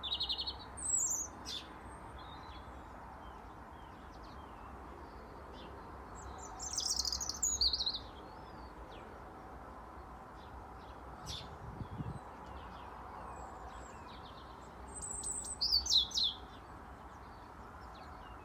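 European robin singing: short, high, fast warbling phrases separated by pauses of a few seconds.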